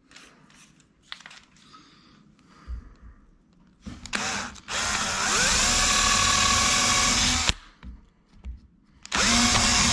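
Power drill boring a pilot hole with a small twist bit into the top edge of a wooden door: a short run about four seconds in, then about three seconds of steady drilling, its whine rising as the motor gets up to speed before it stops, and another short run near the end.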